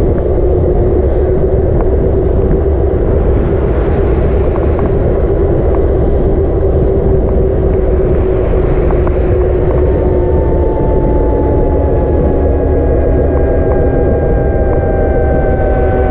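Wind buffeting a GoPro microphone on a moving e-bike, a loud, steady rumble. Under it runs a steady hum, and from about ten seconds in a thin whine slowly falls in pitch.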